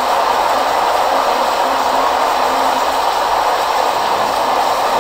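Heavy tropical downpour, rain falling steadily as an even hiss.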